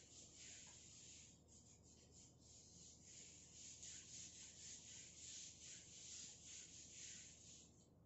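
Whiteboard eraser wiping marker writing off a whiteboard: a faint rubbing hiss in quick back-and-forth strokes, stopping just before the end.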